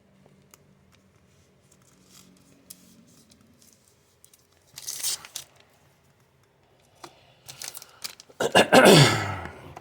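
Trading card packaging being torn open: a short tear about five seconds in, a few small clicks, then a longer, louder tear near the end.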